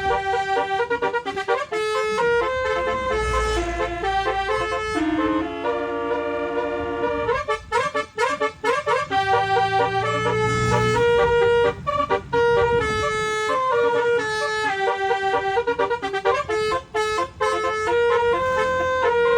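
Multi-trumpet telolet musical air horn (a 12-trumpet set) playing a melody, its notes stepping up and down, with a quick run of short staccato notes about halfway through.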